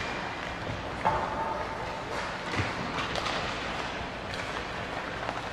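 Rod-operated table hockey game in play: scattered plastic clicks and knocks of the puck and the player figures, over a steady rattle of the control rods.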